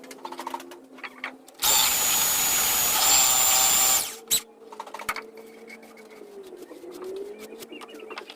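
A power tool runs in one loud burst of a little over two seconds, starting and stopping abruptly, with a steady high whine in it.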